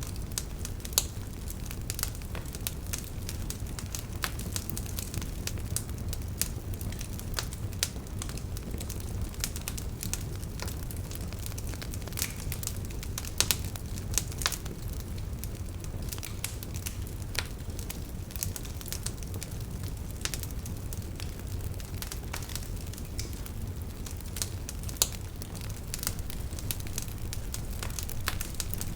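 Wood fire burning in a fireplace, crackling with irregular sharp pops, a few louder than the rest, over a steady low rumble.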